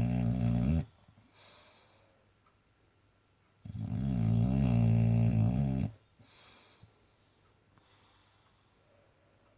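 Boxer dog snoring: one loud snore ends just under a second in, a second of about two seconds comes around the middle, and soft breaths fall between them.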